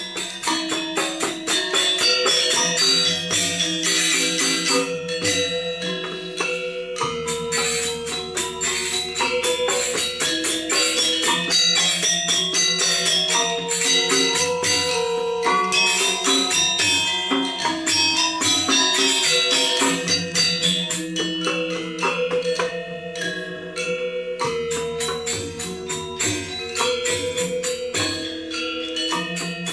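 Balinese gamelan playing Legong dance accompaniment: fast, bright metallic tones over held low tones, with quick jingling percussion strokes throughout.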